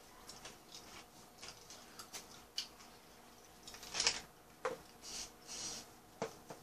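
Quiet eating sounds at a table: faint scattered clicks and rustles of chewing and of paper fast-food wrappers being handled, with a few louder rustles from about four seconds in.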